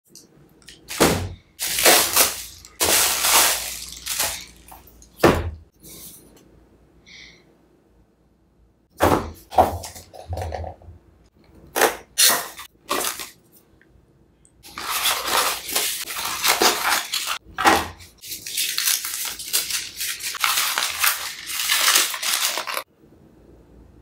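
A cardboard box unboxed by hand on a wooden table: several sharp knocks and scrapes in the first few seconds, packing tape slit with a knife around the middle, then a long stretch of cardboard and packaging rustling as the box is opened, stopping shortly before the end.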